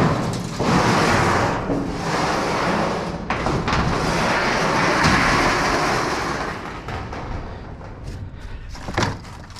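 Metal garage door sections being dragged and shifted inside a steel dumpster: long rough scraping and rumbling in several swells, dying down after about six seconds, with a sharp knock near the end.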